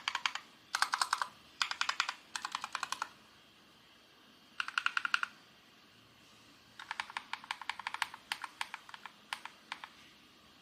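Typing on a Keychron K4 V2 mechanical keyboard with stock Akko Matcha Green switches: fast runs of key clicks in short bursts with pauses between, the strokes growing sparser near the end.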